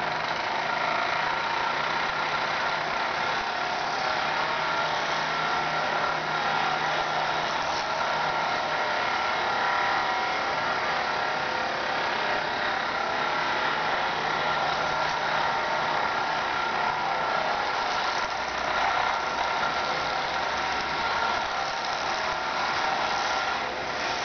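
Battery-operated 1973 Mattel VertiBird Air Police toy helicopter running: the electric motor in the control base whirs steadily as it spins the helicopter's rotor through the long rod, keeping the helicopter flying in circles around the base.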